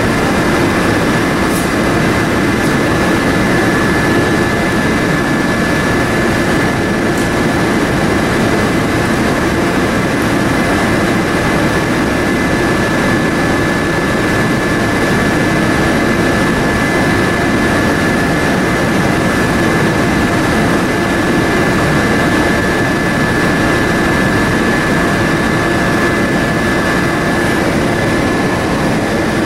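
Paint spray booth's air handling running steadily, a loud even rush of moving air, with compressed air hissing through a spray gun as paint is sprayed. A thin steady whistle sits over the rush and stops shortly before the end.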